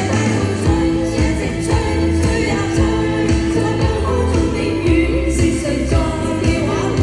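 Pop song with singing over a backing track.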